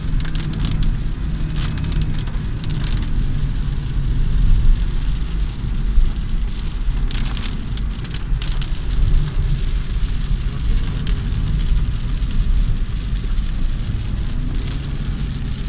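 Heavy rain falling on a moving car over the steady low rumble of the car on the road, with irregular short louder rushes of rain and spray.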